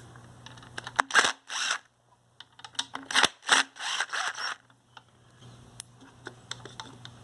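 Hand tools taking fasteners off a string trimmer's housing: sharp clicks and several short rasping bursts between about one and four and a half seconds in, over a steady low hum.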